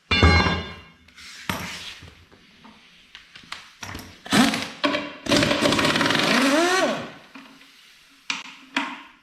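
Metal clanks and knocks from work on a jaw crusher's steel panels: a ringing strike right at the start, scattered knocks, and a power tool running for about two seconds in the middle, its pitch rising then falling.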